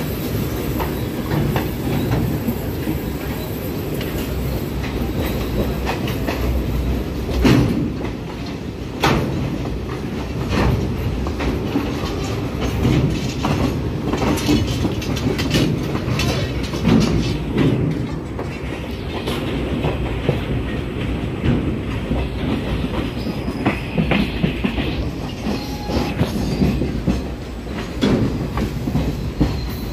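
Passenger train running along the track: a steady low rumble of the carriages with irregular clicks and knocks of the wheels over rail joints. A higher hiss of the wheels joins in during the second half.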